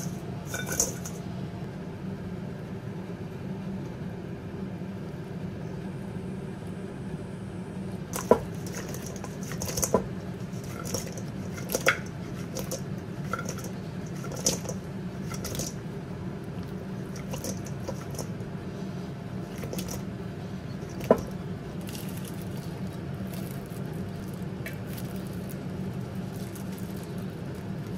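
Fried chicken wings tossed in buffalo sauce in a stainless steel bowl: wet squishing, with a few sharp clinks of the metal bowl, over a steady low hum.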